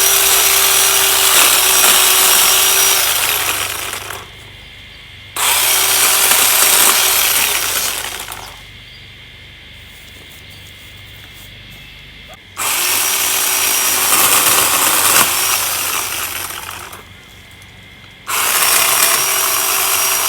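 Electric long-reach pole tree trimmer running in four separate runs while cutting branches. Each run starts abruptly and slowly fades as the motor winds down, with short pauses in between.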